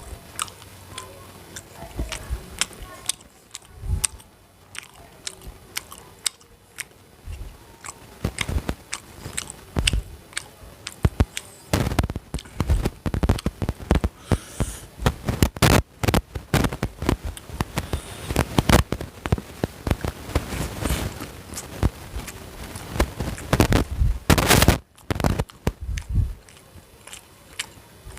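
A person eating: biting and chewing with many sharp, crunchy mouth clicks and smacks, sparse at first and coming thick and fast from about halfway in.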